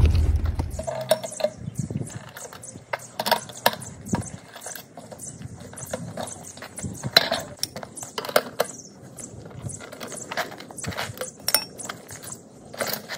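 Irregular metallic clicks and clinks as the wheel of a BMX bike is taken off and handled. A low rumble dies away in the first second.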